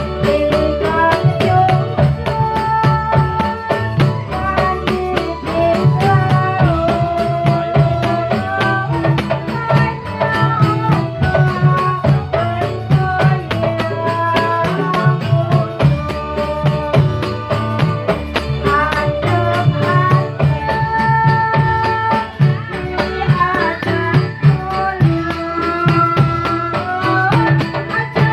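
Dolalak folk-dance music: drums keep a steady rhythm under a melody that moves from note to note.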